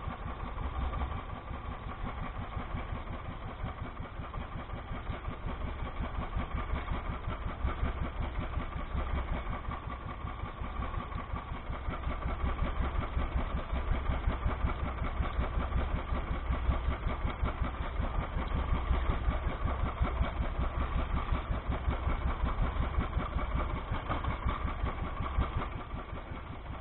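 Motorized outrigger boat's engine running steadily, a rapid even firing beat.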